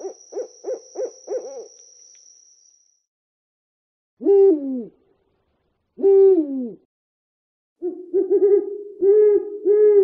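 Owl hooting: a quick run of short hoots, then after a pause two longer hoots that slide down in pitch, then another run of short hoots near the end.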